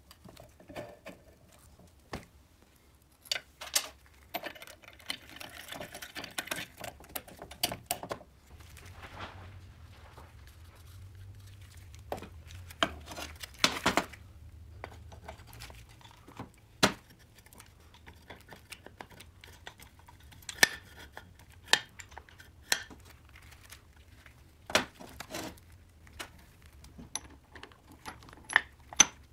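Scattered clicks and knocks of steel shafts and gears being set into an aluminium moped crankcase, with a stretch of rustling handling about five seconds in.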